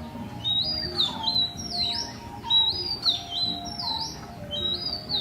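A bird calling over and over, a short high whistled phrase that dips and rises, repeated about once a second, over steady lower tones.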